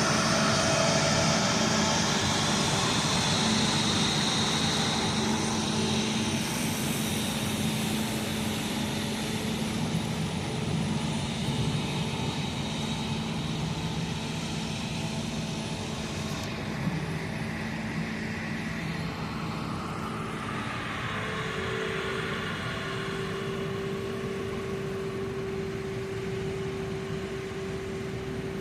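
Diesel engines of corn silage harvesting machinery running steadily, gradually getting quieter. A steady whine joins about two-thirds of the way through.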